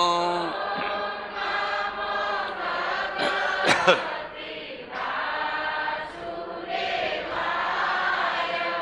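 A group of voices chanting a Hindu devotional invocation together, answering a single male chanter whose long held note ends about half a second in. A brief sharp sound about four seconds in is the loudest moment.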